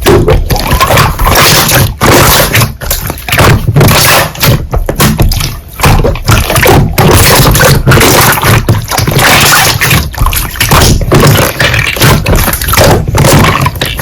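Slime being squished and worked by hand: a dense, irregular run of loud crackling clicks and pops.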